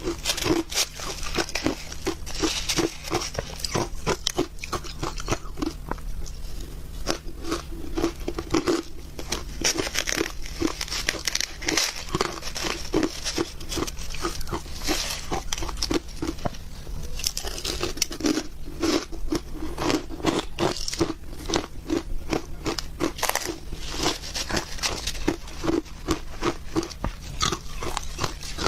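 Close-miked crunching and chewing of shaved ice: a rapid, continuous run of crisp crunches as the ice is bitten and chewed.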